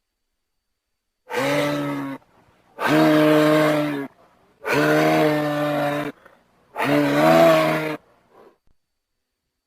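Moose calling four times in a row, each a low, pitched, drawn-out call lasting a second or a little more, with short pauses between. The calls begin about a second in.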